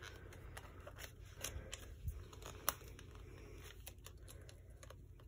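Faint clicks and rustling of an open plastic CD jewel case and its paper booklet being handled, as fingers try to work the booklet out of the case, with one sharper click near the middle.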